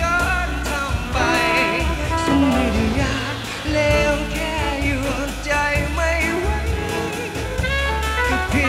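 A male pop singer singing a Thai song into a microphone over full backing music with a steady bass line and beat.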